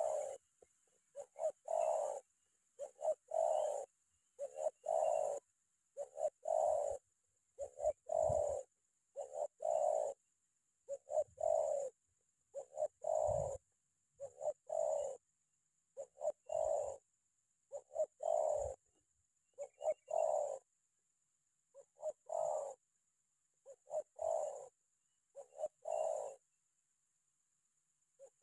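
Spotted dove cooing: short coo phrases repeated about every second and a half, with a couple of brief pauses in the second half.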